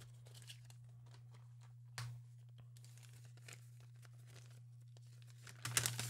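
Paper rustling as a folded letter is handled and unfolded, with one sharp click about two seconds in and louder crinkling near the end. A steady low hum sits underneath.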